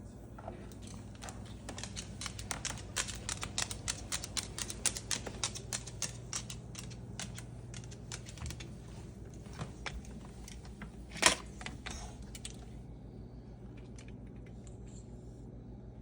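A Moluccan cockatoo's beak working on something in quick, irregular crisp clicks, like fast typing. The clicking thins out after the middle, there is one sharp louder snap about eleven seconds in, and then it stops.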